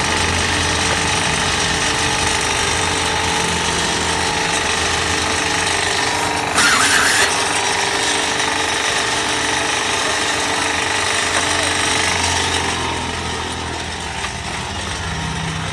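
Electric motorbike tyre-cutting machine with a 3-horsepower motor, running steadily. A brief louder burst comes about six and a half seconds in, and the sound eases a little near the end.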